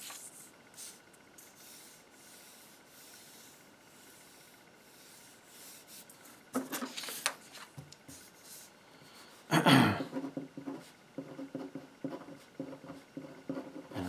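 Sheets of paper rustling and sliding on a desk, with the loudest rustle a little past the middle. Then a felt-tip marker squeaks across the paper in quick short strokes as words are written.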